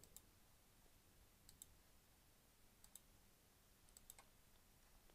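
Faint computer mouse clicks over near silence, a few single clicks and quick double clicks about every second or so.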